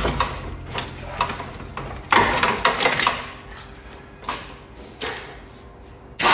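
Clunks, knocks and scraping of a car radiator being worked loose and pulled out of the front of the car, in several separate bursts, the longest about two seconds in.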